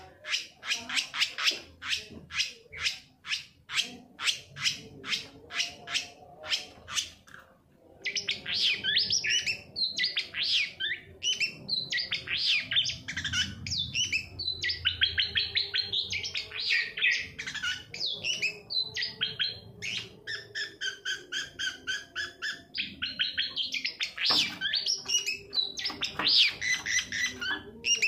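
Long-tailed shrike (cendet) singing. It opens with a fast run of sharp, evenly repeated chips lasting about seven seconds, then, after a short break, goes into a varied, chattering warbled song of quickly changing phrases.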